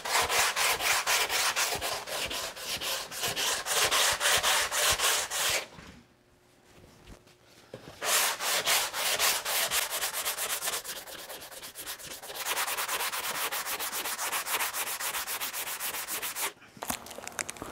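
Sanding block with sandpaper rubbed over cured body filler on a truck cab panel, in quick back-and-forth strokes several times a second. The strokes pause for about two seconds a third of the way in, then resume and stop about a second before the end. The filler is being sanded soon after curing, when it sands off fastest.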